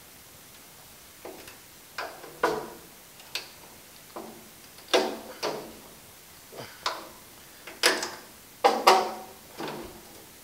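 A piece of wood knocking against the inside of the steel cab louvers of a 1950 Chevy 3100 truck, bumping the pushed-in louvers back out. About a dozen sharp, irregular knocks, each with a short metallic ring, loudest near the end.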